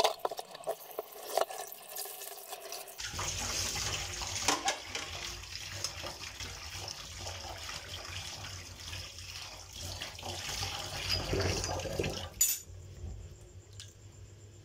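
Dishes being scrubbed with a scrub pad in a stainless steel sink, with light clicks and knocks. About three seconds in, a kitchen tap starts running and water splashes into the steel sink as the dishes are rinsed. It shuts off sharply about twelve seconds in.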